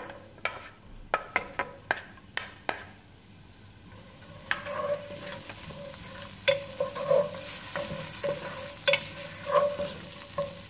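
Chopped onion going into a stainless steel pot and stirred with a wooden spatula. Quick taps of the spatula come first, then scraping strokes against the pan as the onion starts to sizzle in the oil, the sizzle growing louder in the second half.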